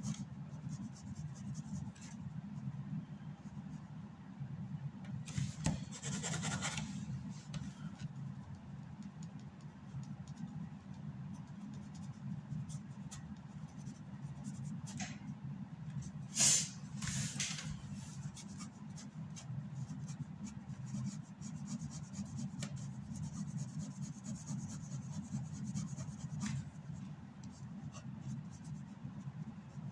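Ink pen scratching on drawing paper in short hatching strokes, louder for a moment about six and seventeen seconds in, over a steady low hum.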